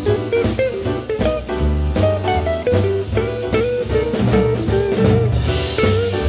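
Instrumental jazz-style background music with guitar and drums and a steady beat.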